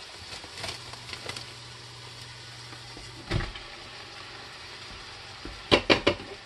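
Plastic wrap crinkling as sliced mushrooms are tipped from a plastic tray into an Instant Pot, with a thump about halfway through and a quick run of sharp knocks near the end.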